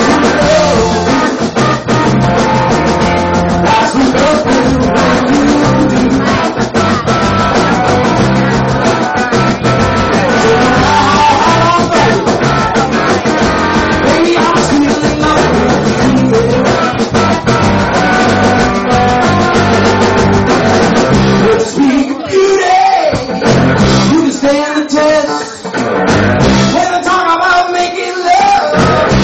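Live rock trio playing: electric guitar, bass guitar and drum kit, with a sung vocal. Near the end the bass and drums drop out in short gaps, leaving mostly guitar and voice.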